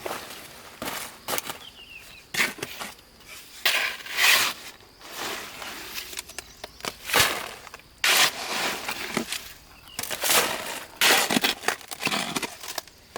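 Stones being handled during stone-fence work: irregular crunching and scraping strokes, one every second or so, some short and some drawn out.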